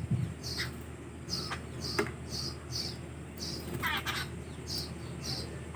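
Birds chirping while they feed: a steady run of short, high chirps about two or three a second, with a longer falling call about four seconds in.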